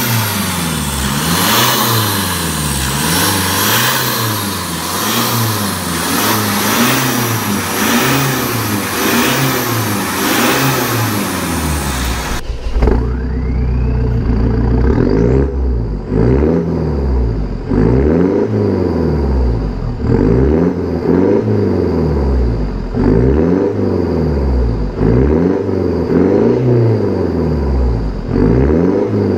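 Mitsubishi Montero Sport's DI-D turbodiesel engine with an aftermarket dual-tip exhaust, free-revved over and over in Park, its pitch rising and falling about once a second. About twelve seconds in the sound turns duller and deeper, heard from inside the cabin, and the revs climb and drop about every two seconds.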